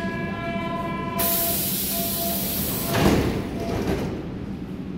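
Berlin U-Bahn F-type train's doors closing: a steady tone stops about a second in, a loud hiss follows, and the doors shut with a thud about three seconds in.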